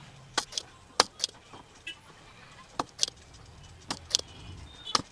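Spring-loaded desoldering pump snapping and being re-cocked while pulling solder from potentiometer pins: about nine sharp clicks, several in quick pairs.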